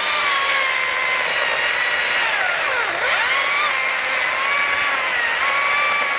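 STIHL battery-powered electric chainsaw running with a steady motor whine. About three seconds in the whine drops sharply in pitch, then climbs back up: the motor bogging as the chain bites into the wood, which the owner puts down to not enough power.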